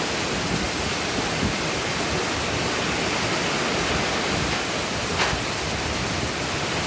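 Heavy rain pouring down as a steady, dense hiss, with a brief click about five seconds in.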